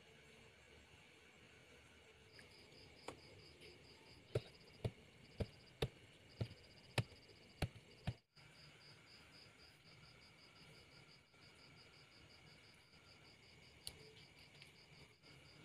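A series of about eight sharp ticks roughly half a second apart from a hobby knife working a small PVC strip, with one more tick near the end. A faint, fast-pulsing high insect trill runs underneath.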